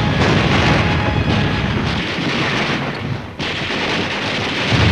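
Battle sound of gunfire and shell explosions forming a continuous loud din, which dips briefly about three seconds in.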